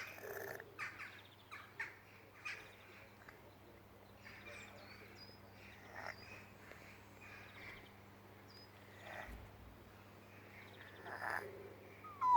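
Snore-like breathing from an animal with a nasal infection: short, raspy breaths about one a second, irregular in spacing. Faint high chirps of small birds sound in the background, and a short falling call ends the stretch.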